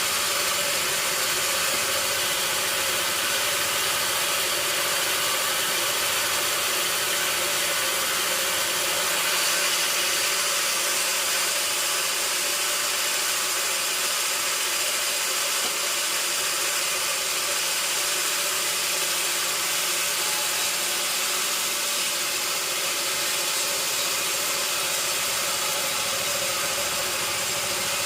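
Sawmill machinery running steadily: a constant engine-like drone with a hiss over it, holding at one level with no cuts or impacts standing out.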